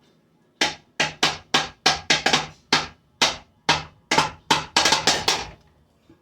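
A rapid series of about fifteen hard blows striking a ceiling fan, each a sharp bang, roughly three a second and unevenly spaced, stopping near the end.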